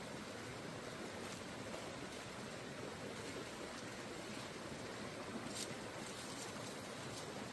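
Shallow rocky stream flowing steadily, with a few faint brief rustles of plant stems.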